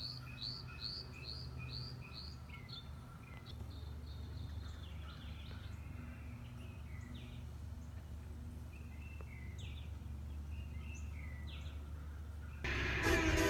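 Birds chirping: first a quick run of repeated notes at about two a second, then scattered single chirps, over a low steady hum. Loud electronic dance music cuts in near the end.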